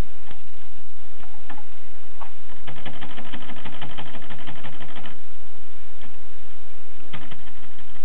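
Tippa portable typewriter's carriage mechanism clicking as it is worked by hand: a few separate clicks, then a rapid, even run of ratcheting clicks lasting about two and a half seconds, and another short click near the end.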